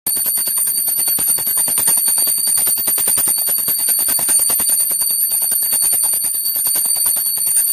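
Puja hand bell rung rapidly and without pause during aarti: quick, even strikes under a steady high ringing.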